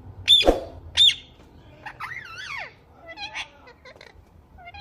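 Pet green parrot calling: two loud, sharp screeches in the first second, then a warbling call that rises and falls, and a few shorter chirps.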